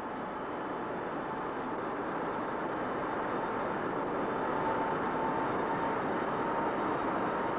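The Avrocar's turbojet engines and central turborotor running steadily on the static test rig: a continuous rushing jet noise with a steady whine over it.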